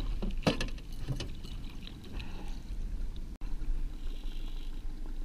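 Steady low rumble of a small fishing boat trolling on a lake, with a few sharp knocks and rattles in the first second and a half.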